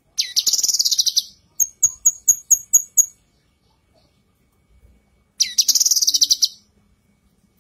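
Female cucak kinoi singing. A rapid, high, buzzy trill is followed by six short, sharp notes at about four a second, then a second trill like the first near the end.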